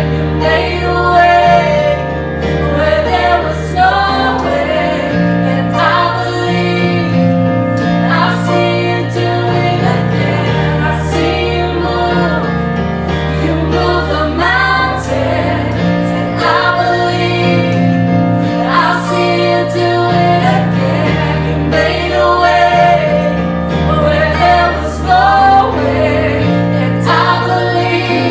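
Worship music: voices singing a gospel-style song over instrumental backing, with long held bass notes that change every few seconds.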